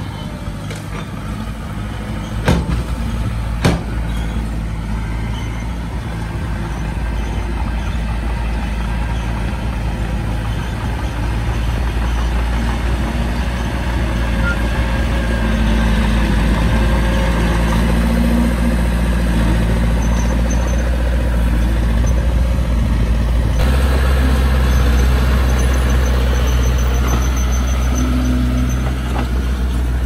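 Heavy diesel earthmoving machinery running steadily, with two sharp knocks in the first few seconds. The low drone steps up abruptly to a louder, deeper level about three-quarters of the way through.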